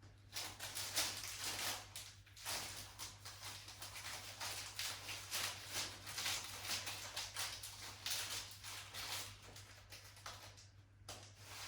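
Packaging rustling and crinkling as a packet of joss sticks is opened by hand, in irregular bursts, with a steady low hum underneath.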